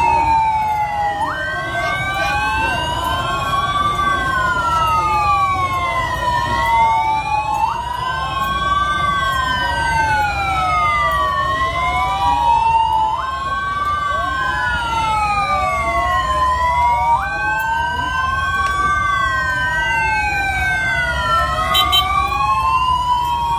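Several motorcade escort sirens wailing at once, their pitches sliding up and down in slow overlapping cycles of two to three seconds, with a steady held note cutting in every few seconds. A low rumble runs underneath.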